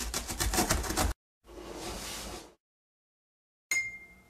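Cartoon sound effects: a rapid, rhythmic ripping of a box-cutter blade slitting the packing tape on a cardboard box, lasting about a second. Then comes a softer whoosh of about a second as the box opens. Near the end there is a short, bright ding that rings out and fades.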